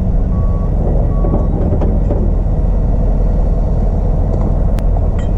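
New Holland B95 backhoe's diesel engine running steadily, while its reverse alarm beeps twice near the start and then stops.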